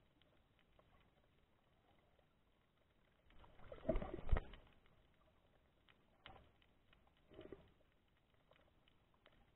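Muffled water noise heard through an underwater camera housing: mostly faint, with a louder stretch of rushing and knocks about halfway through and two shorter bursts later.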